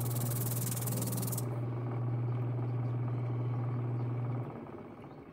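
Shop-built 32-inch drum sander running with a steady motor hum. For the first second and a half there is also the hiss of its sandpaper drum working a curved Baltic birch plywood piece fed across it. The hum cuts off suddenly about four and a half seconds in.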